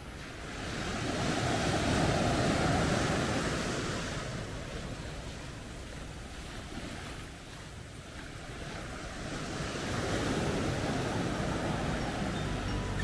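Sea waves breaking and washing up the beach, swelling about two seconds in and again near the end, with some wind on the microphone.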